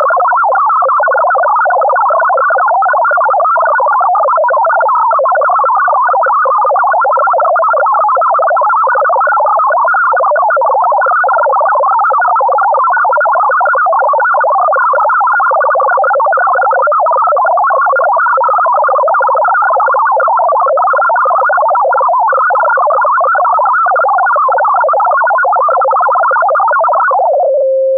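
MFSK64 digital text transmission centred on 1000 Hz: a loud, dense warble of rapidly hopping tones. It carries data meant to be decoded by computer. Near the end the warble stops and a brief steady lower tone is left.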